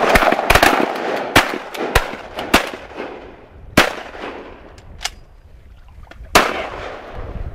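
Several duck hunters' shotguns firing a volley at a flock of teal. About half a dozen shots crowd into the first second, then single shots follow, spaced out over the next several seconds, each trailing off in an echo.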